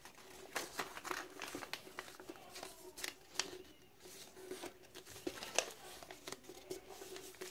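A sheet of printer paper being folded and creased by hand into an origami turtle: intermittent rustling and crinkling with small crisp clicks as the folds are pressed flat. A faint steady hum runs underneath.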